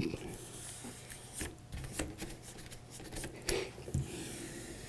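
Hands rubbing a large photo print down onto an adhesive-backed mounting board: soft swishing of palms sliding over the paper, with a few short scrapes.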